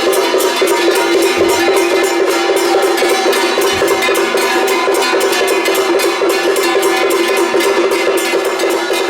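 Traditional Taiwanese temple-procession music: fast, continuous clashing of gongs and cymbals with drums, over a steady held tone.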